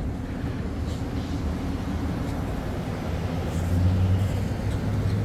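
Low, steady rumble of a motor vehicle engine, swelling slightly about four seconds in.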